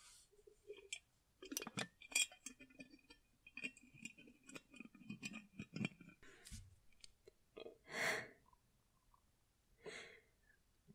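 Faint small clicks and clinks of a glass jar being handled, just emptied of the blood drunk from it, then a woman breathes out, a longer breath about eight seconds in and a shorter one about two seconds later.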